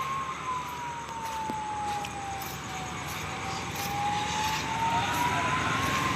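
A siren wailing slowly: one tone rising and falling about every six seconds, over steady traffic noise.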